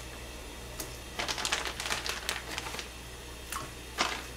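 Fish cake sticks being pulled from a plastic package and dropped into an empty pot: the packaging rustles while the pieces land with a run of light clicks and taps, busiest a little past a second in and again near the end.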